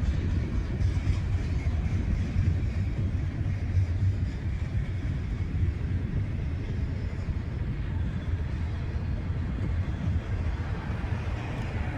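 Train rolling past on the tracks, a steady low rumble.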